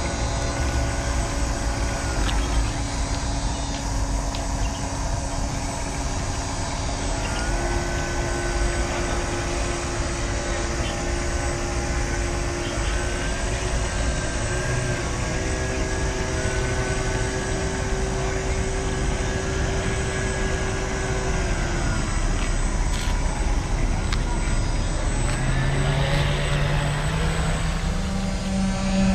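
Motors of a radio-controlled model fast ferry whining, their pitch stepping and gliding up and down as the boat is throttled gently at low speed. Near the end the whine climbs and holds higher as the model runs at speed.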